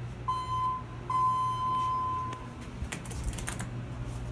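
ThyssenKrupp elevator car's alarm sounding from the alarm button: a steady high beep-like tone, once briefly and then again for about a second and a half. A few clicks follow, over the low steady hum of the cab fan.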